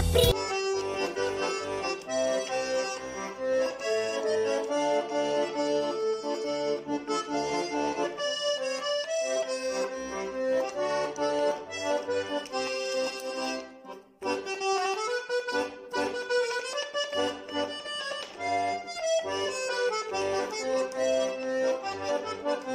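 Instrumental background music: a melody over a regular, alternating bass accompaniment, with a brief break about two-thirds of the way through.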